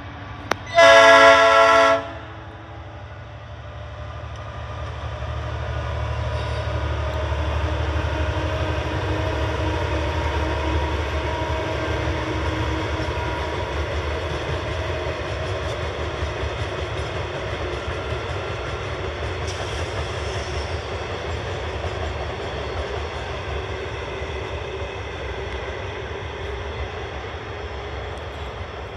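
Aurizon diesel locomotive sounds one loud blast of its horn about a second in. Then the engine and a long train of lime wagons run past, the rumble building over several seconds and slowly fading as the train moves away.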